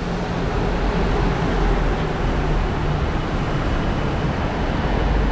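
Steady low rumble of city background noise, with a faint steady hum.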